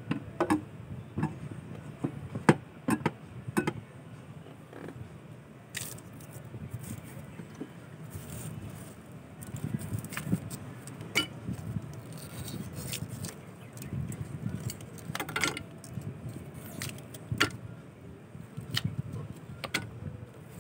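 Ice cubes clinking and clattering as they are dropped by hand into the aluminium hopper of an electric ice crusher: a string of sharp, separate clinks and knocks, with a low rumble underneath.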